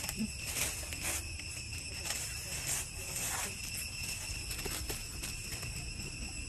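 A steady, high-pitched ringing drone made of several constant tones, with a few soft, brief rustles and scuffs over it.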